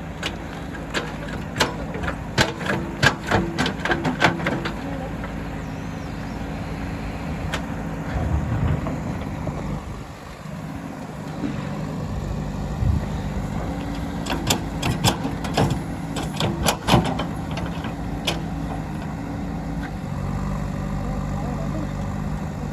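JCB 3DX backhoe loader's diesel engine running steadily while it digs, with two spells of sharp knocks a couple of seconds long, near the start and again about two thirds of the way in.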